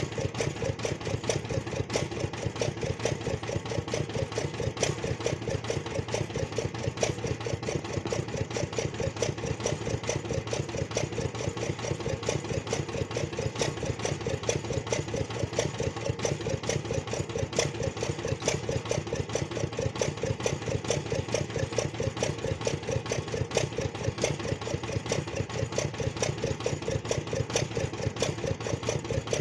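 The engine driving a small water-well boring rig running steadily, with a fast, even knocking beat.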